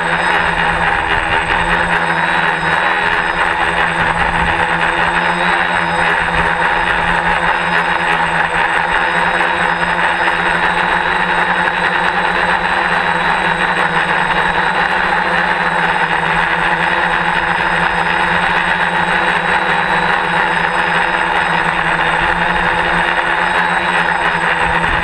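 DJI F450 quadcopter's four brushless motors and propellers running steadily in flight, recorded by the GoPro on its frame: a loud, even drone with a slight pitch shift now and then and an uneven low rumble underneath.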